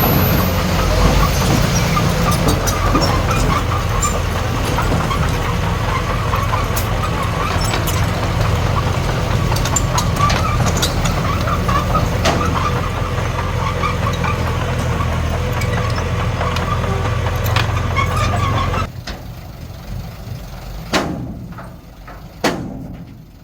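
Diesel engine of heavy earthmoving machinery running steadily, with scattered clanks and knocks. About three-quarters of the way in the engine sound drops away abruptly, leaving a much quieter stretch broken by two loud knocks.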